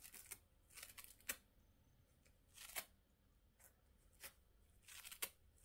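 A cat's rough tongue licking at a diaper: faint, irregular scratchy rasps, a handful of separate strokes, a sound likened to nails on a chalkboard.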